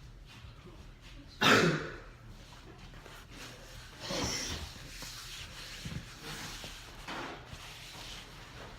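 Handling noises while tidying up after a meal: a loud rustling scrape about one and a half seconds in, another around four seconds and a shorter one near seven seconds.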